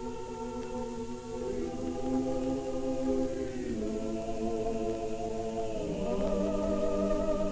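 Abkhazian folk ensemble singing unaccompanied in several voices, holding long notes that move to new pitches together a few times.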